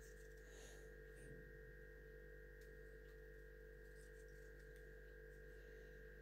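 Near silence: a steady electrical hum, with a few faint ticks.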